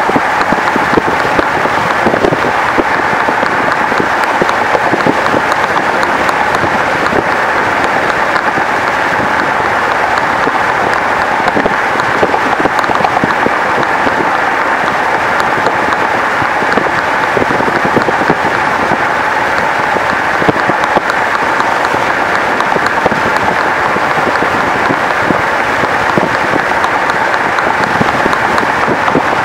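Steady, loud rushing noise with a fine crackle: wind and road noise of a moving car.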